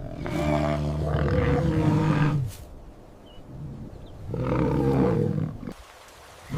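A large wild animal roaring twice, each call a long, deep, pitched roar of about two seconds with a short pause between.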